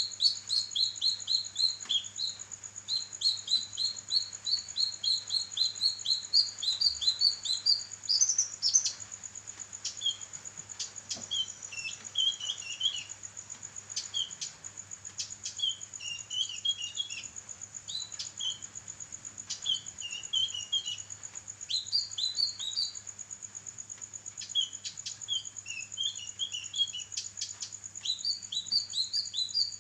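A kinoi songbird singing vigorously: fast runs of repeated high chirps, then broken, varied chattering phrases, over a steady high-pitched whine.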